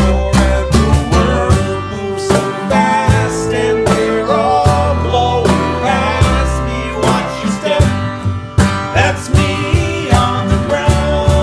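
Acoustic string band playing a song: strummed acoustic guitar, plucked upright bass and fiddle, with voices singing along.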